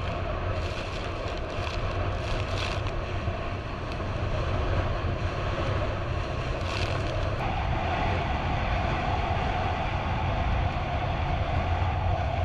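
Speedboat running fast over choppy sea: a steady low engine drone under the hiss of wind and rushing water, with a few short splashes of spray in the first three seconds and again about seven seconds in. A mid-pitched hum grows stronger about seven and a half seconds in.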